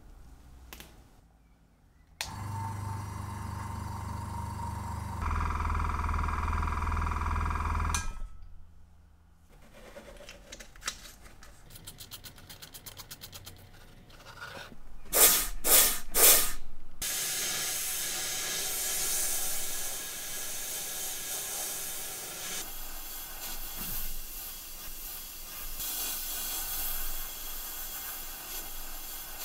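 Pencil sandblaster in a blast cabinet: three short bursts of air, then a long steady hiss of compressed air and aluminium oxide grit stripping the old chrome plating off a watch case. Earlier, a steady hum for several seconds, then a run of quick clicks.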